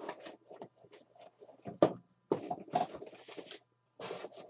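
Trading cards and plastic card holders being handled by hand: scattered light clicks and scrapes, a sharper click a little before two seconds in, and two short rustling slides, one around the middle and one near the end.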